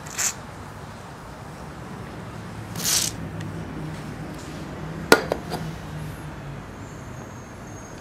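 Rusted, seized selfie-stick pivot joint being forced: short gritty scrapes, then a sharp click about five seconds in with two fainter clicks right after, the joint stiff from salt-water corrosion. A steady low hum of street traffic runs underneath.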